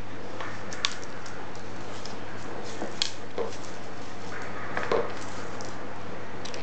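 A handful of sharp clicks and light knocks at irregular intervals as a cat plays inside a plastic stool on a tile floor, its paws and body bumping the plastic and tapping the floor, over a steady low hum.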